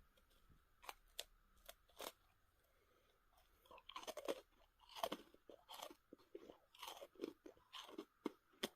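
Close-up crunching and chewing of a Coca-Cola Oreo sandwich cookie. A few faint isolated crunches are followed by a short pause, then steady irregular crunching from about three and a half seconds in.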